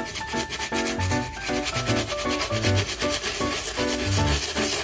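Small hand brush scrubbing a muddy child's sneaker in quick back-and-forth strokes, a steady rasping rub. Soft background music plays underneath.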